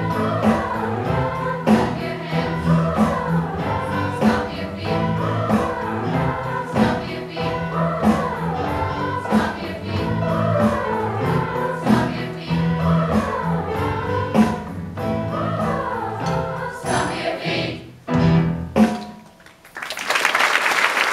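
Middle school choir singing with piano, drum kit and bass, the drums keeping a steady beat under repeated sliding vocal phrases. The song ends on a last accented chord about 18 seconds in, and after a short pause the audience breaks into applause near the end.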